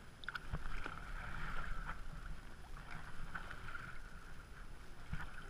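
Kayak paddling: the blades dip and water splashes and trickles off them and along the hull in a steady wash, with a few faint knocks. Low wind rumble on the microphone underneath.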